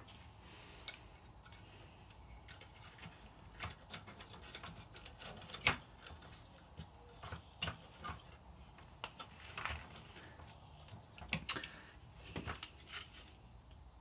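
Scattered light plastic clicks and taps from handling a graphics card's plastic fan shroud, as the fan blade is pressed back onto its freshly lubricated motor hub.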